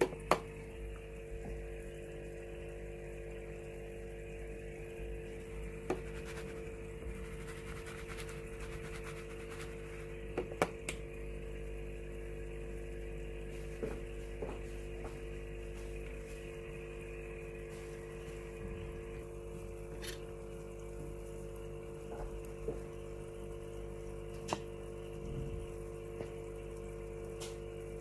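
Aquarium equipment running: a steady electrical hum with a faint trickle of water, broken by a few light clicks.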